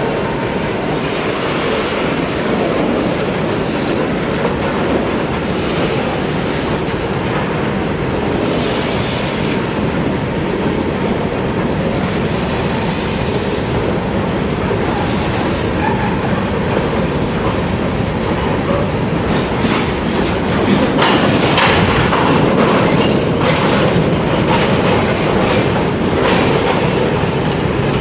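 Freight train cars rolling past at steady speed: a continuous rumble of steel wheels on rail, with a rapid run of clicks from wheels crossing rail joints getting denser in the last third.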